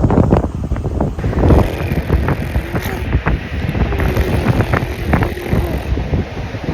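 Strong wind buffeting the microphone, a loud uneven rumble that swells and dips in gusts.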